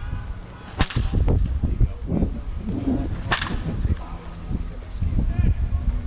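Baseball bat striking pitched balls in batting practice: two sharp cracks, one about a second in and one about two and a half seconds later. A steady low rumble lies under them.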